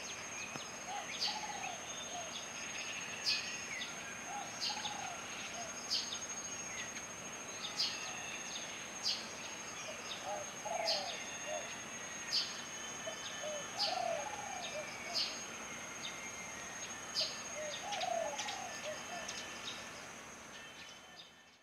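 Eurasian tree sparrows chirping, short sharp high chirps repeated about once every second or so. Under them run a steady thin high-pitched tone and a lower call that recurs every few seconds, all fading out near the end.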